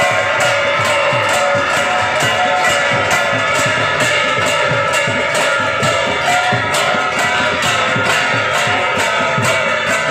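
Music: a guitar melody over a steady drum beat.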